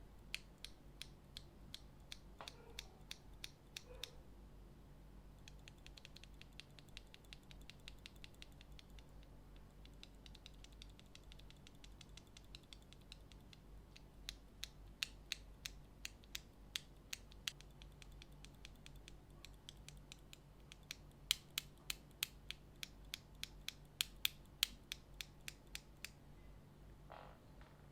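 Akko CS Ocean Blue tactile mechanical keyboard switches being pressed and released: a long series of faint clicks, with louder runs of clacks in the middle and again near the end.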